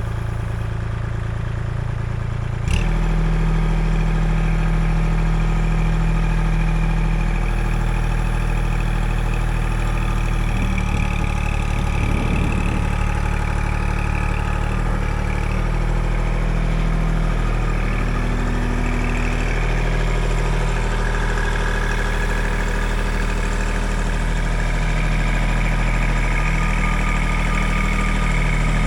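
Kubota L2501 compact tractor's three-cylinder diesel engine running steadily; it gets suddenly louder about three seconds in, and its pitch shifts a little about halfway through.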